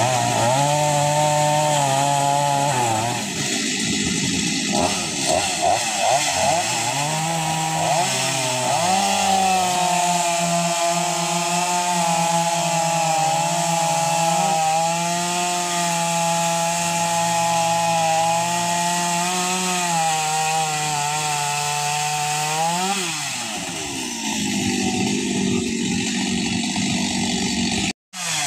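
Chainsaw engine running hard for a long stretch, its pitch shifting up and down as it is throttled while cutting up a fallen tree. The sound cuts out briefly near the end.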